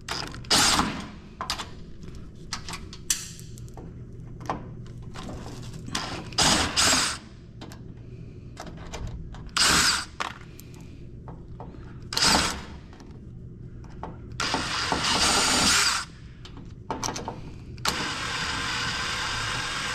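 Power drill/driver running in short bursts, then in two longer runs near the end, backing out screws from metal equipment housing. Scattered knocks and clinks of metal between the runs.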